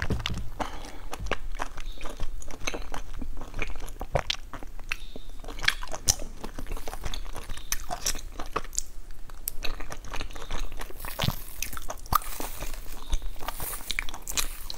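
Close-miked chewing of sticky glutinous rice cake: a steady stream of wet mouth clicks and smacks. In the last few seconds plastic cling film crinkles as a wrapped cake is unwrapped.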